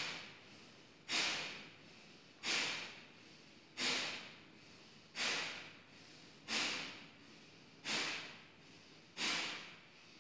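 Kapalbhati breathing: a woman's short, sharp, forceful exhalations through the nose, each a sudden rush of air that fades quickly. They come in an even rhythm about every second and a half, seven of them in a row.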